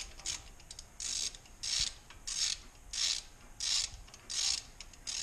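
Hand ratchet working a bolt with a steady back-and-forth, its pawl clicking in a short rasping burst on each return stroke, about one and a half strokes a second.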